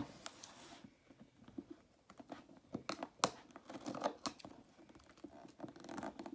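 A cardboard shipping box being opened by hand: packing tape tearing and crinkling, and cardboard rustling, with scattered sharp clicks.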